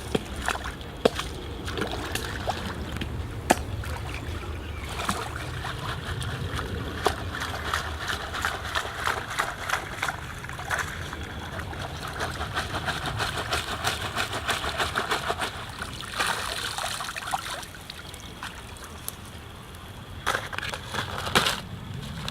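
Water sloshing and trickling, busiest in the middle stretch, with a few sharp knocks scattered through it.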